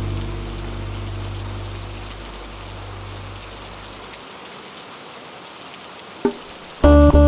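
Steady rain hiss. In the first few seconds the low notes of a jazz track die away, leaving the rain on its own. Near the end there is a single knock, then a new light jazz piece starts with loud plucked guitar-like notes.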